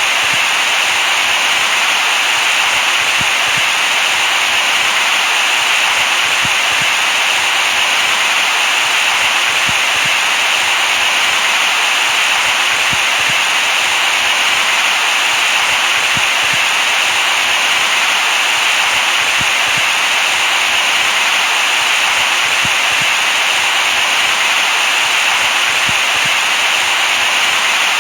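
Steady white noise: an even, bright hiss with little low rumble, holding at one level without change.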